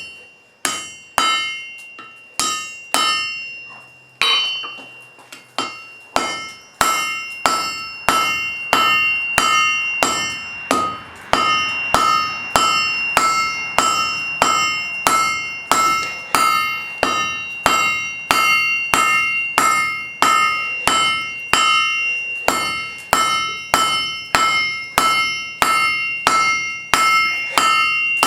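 Blacksmith's hammer striking wrought iron on an anvil, each blow ringing out. The blows are slow and spaced for the first few seconds, then settle into a steady rhythm of about two a second.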